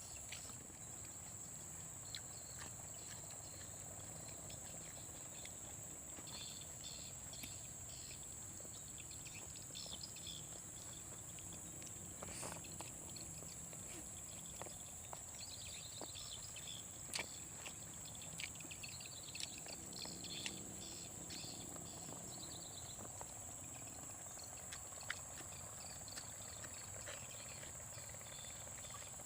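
Forest insects droning steadily in one high, even tone, with runs of rapid trilling chirps through the middle and scattered sharp clicks.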